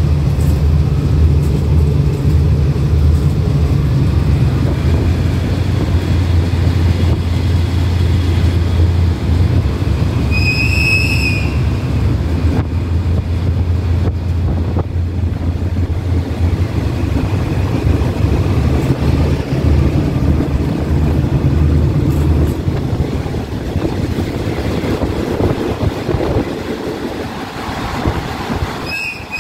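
Diesel locomotive engine running under power, heard from inside the cab as a loud steady low drone that eases off somewhat in the last few seconds. A brief high-pitched tone sounds about ten seconds in, and two more short ones come right at the end.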